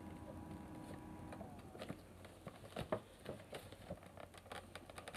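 Fingers picking and scraping at the flap of a cardboard Funko Pop box that is hard to open, a scatter of small, faint scratches and taps.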